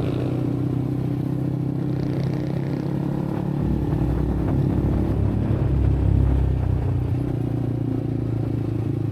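A motor vehicle engine running steadily, its low rumble swelling for a few seconds in the middle.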